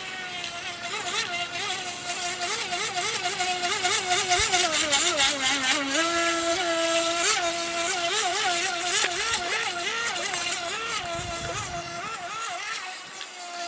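Radio-controlled model boat's motor whining steadily, its pitch wavering up and down over and over as the boat runs through waves.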